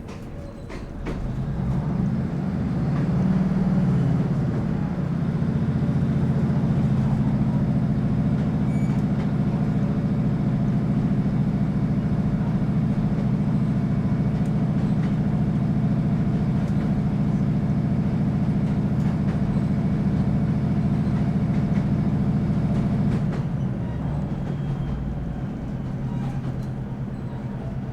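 Class 156 Sprinter's underfloor Cummins diesel engine working hard under power. Its revs rise over the first few seconds and then hold a steady drone. About 23 seconds in the drone drops away as power comes off.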